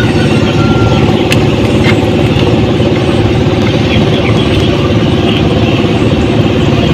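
A small engine running steadily and close by, with an even, rapid pulsing that does not change speed.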